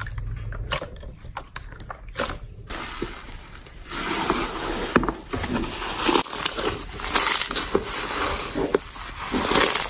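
Slime being squeezed and worked by hand, giving a string of sharp crackling pops. It grows denser and louder about four seconds in.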